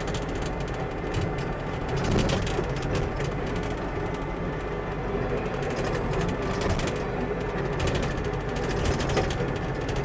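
Kubota SVL65-2 compact track loader heard from inside its cab: the diesel engine running loudly under a dense, constant mechanical rattle.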